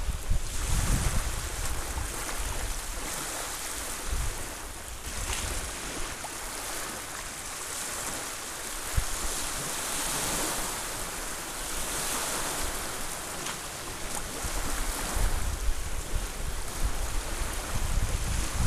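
Small bay waves lapping and washing up onto a sandy, rocky beach, in slow rising and falling washes. Wind buffets the microphone with a low rumble near the start and again toward the end.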